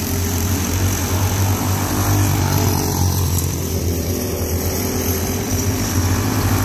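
Several small go-kart engines running at racing speed as the pack laps the oval, a steady buzz that gets a little louder near the end as the karts come by.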